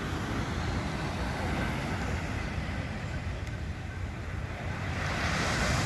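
Sea surf washing in steadily, with wind rumbling on the microphone; a wave swells louder about five seconds in.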